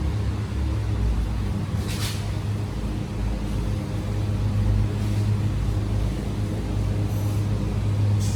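A steady low mechanical hum, like a motor running, with a few short hissing rustles about two seconds in and again near the end.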